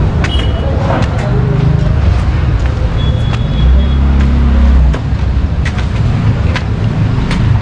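Busy road traffic: vehicle engines running and passing, with one engine drone louder from about three and a half to five seconds in.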